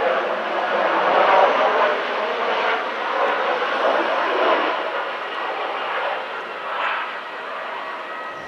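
Jet engines of an Airbus A320-family airliner running as it lands and rolls out: a steady rushing noise with a faint steady whine, loudest early on and slowly fading.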